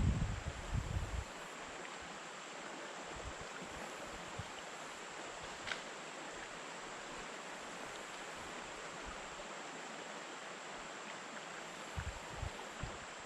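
Steady rushing of a small river's current, with a few low bumps near the start and again near the end.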